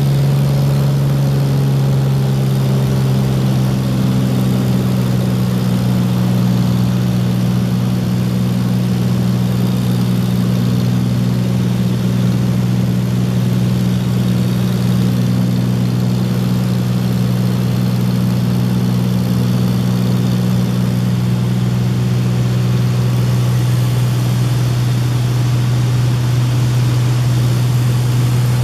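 Small bush plane's engine and propeller droning steadily in flight, heard from inside the cabin.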